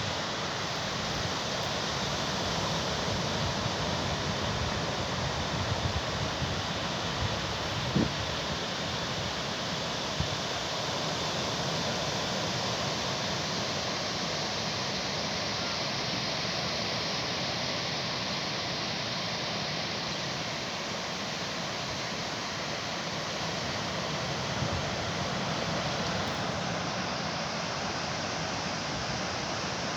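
Rough sea surf: a steady roar of breaking waves, with a brief thump about eight seconds in.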